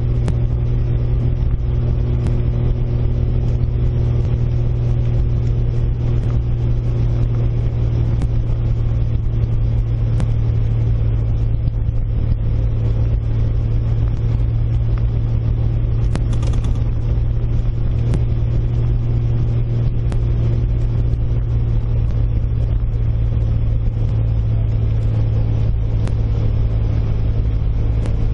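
1997 Jeep TJ Wrangler driving slowly on a gravel road: a steady low engine drone with faint scattered ticks, heard from the open-topped cab.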